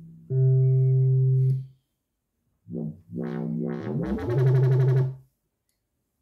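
Korg Kaossilator Pro+ synthesizer bass presets played one after another from its touchpad. First a held low bass note, then a pause, then a few short bass notes that slide upward in pitch and hold before cutting off.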